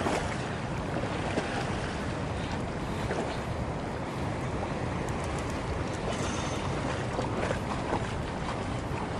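Shallow river current rushing and lapping steadily close to the microphone, with a low rumble of wind on the microphone.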